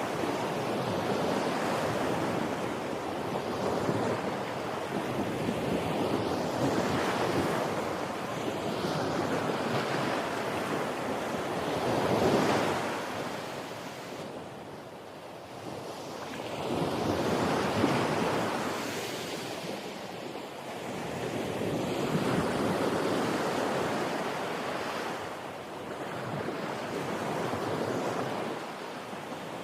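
Waves breaking on a shore: a continuous rush of surf that swells and falls back every few seconds, loudest about twelve and eighteen seconds in.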